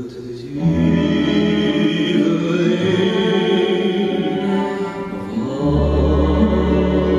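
Live chamber ensemble of strings, guitar and bayan playing the closing bars of a waltz-romance in long held chords, moving to a new chord with a deep bass about five and a half seconds in.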